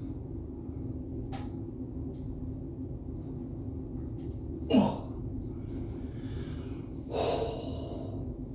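A person straining on a toilet: a short, loud straining sound that drops in pitch about halfway through, then a breathy exhale near the end, over a steady low hum.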